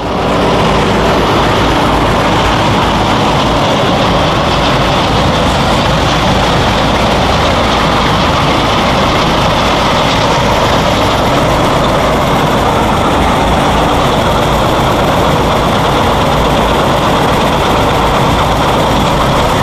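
Trailer sewer jetter running steadily at high pressure: engine and pump drone under the loud hiss of a high-torque jetting nozzle spraying water inside a 24-inch corrugated plastic pipe.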